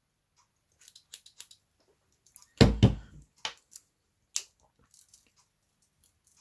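Swiss Army knives being handled: scattered small clicks and taps of the tools and scales, with a heavier double knock about two and a half seconds in.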